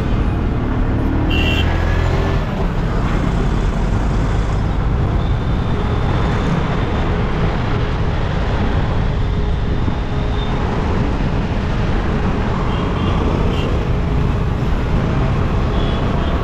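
Steady city traffic and road noise heard from a moving car, with a couple of brief horn toots.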